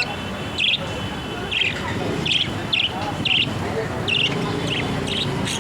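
Small bird chirping: short, sharp chirps every half second or so, some in quick pairs, over a steady background murmur.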